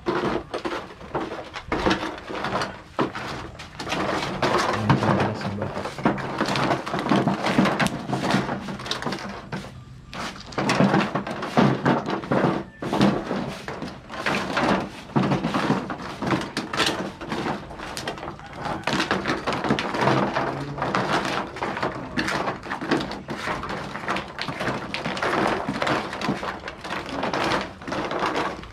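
Hot umu stones clattering and knocking against one another as they are pushed and spread over the embers with long wooden poles, an uneven run of knocks throughout. This is the stage where the red-hot stones are levelled out before the food goes on.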